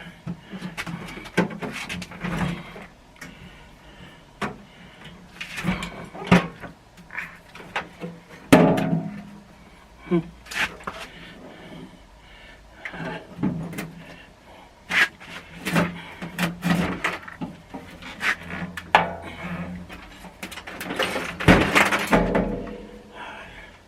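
Metal hand tools clattering and clinking as they are picked up and set down, with the drawers of a steel tool chest knocking and sliding, in irregular bursts.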